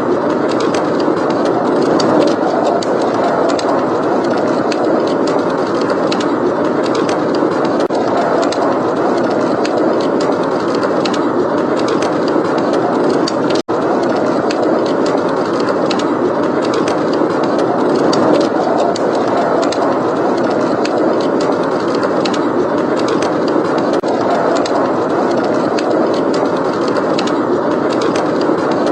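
Snowstorm wind blowing steadily, a constant rushing noise, with a wood fire crackling in small sharp pops throughout. The sound cuts out for an instant about fourteen seconds in.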